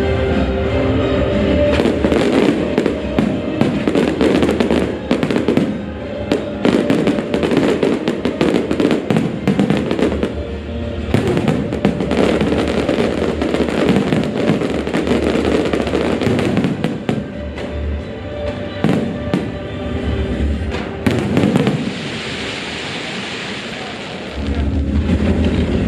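Aerial fireworks shells bursting and crackling in rapid, dense succession over a music soundtrack. Near the end the bangs stop, a hissing crackle fades out, and the music goes on alone.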